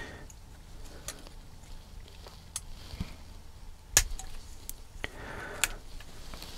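Hobby knife trimming the leftover gate nubs off plastic kit gears: scattered light clicks and scrapes of the blade on plastic, with a sharper snap about four seconds in. The trimming removes protruding bits of plastic from the spinning pieces.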